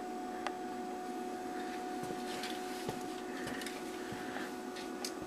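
Quiet room tone: a steady hum with a few faint, scattered ticks.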